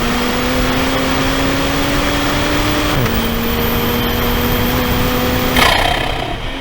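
Toyota GR Supra (A90) engine pulling hard on track, heard from inside the car: the note climbs steadily in pitch, drops at an upshift about three seconds in, then climbs again. Near the end the note breaks off with a sharp burst and the engine sound falls away, with a steady hiss of road and wind noise underneath.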